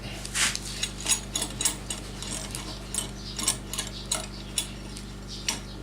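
A clamp being tightened onto a glued-up piece: a series of about a dozen sharp clicks at uneven intervals.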